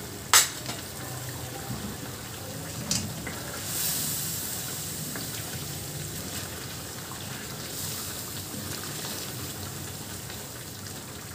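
Chicken karahi frying in its wok: a steady sizzle and bubble of oil and tomato gravy as the masala is fried (bhuna) in freshly added oil. It swells a little about four seconds in, while a wooden spoon stirs it. A sharp knock comes just after the start and a smaller one near three seconds.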